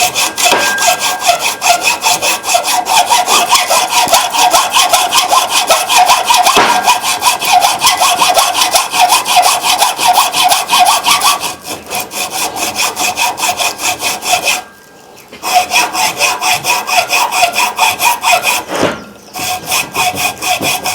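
A hand saw cutting through the copper secondary winding of a microwave-oven transformer, in fast, even back-and-forth strokes, with short pauses three times in the second half.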